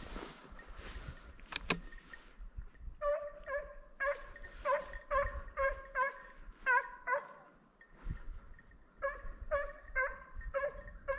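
A hunting dog barking in quick runs of about two to three barks a second, in two bouts with a short pause between. A rustle and a sharp click come in the first two seconds.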